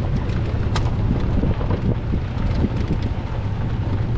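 Six-seater golf cart driving along a dirt lane: a steady low rumble with wind buffeting the microphone, and a few light clicks.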